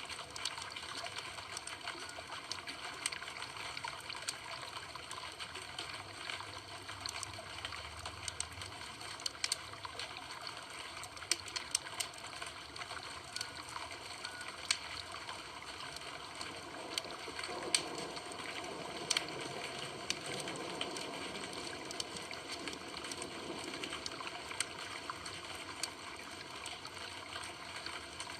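Campfire burning: a steady hiss of flames with irregular sharp crackles and pops from the burning wood.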